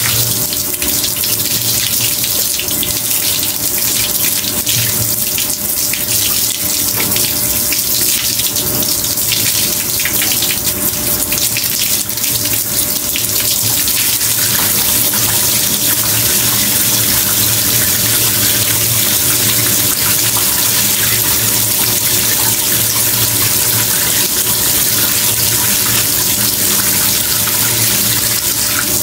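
Water spraying steadily from a handheld shower head onto hair and into a bathtub, an even hiss with a steady low hum underneath.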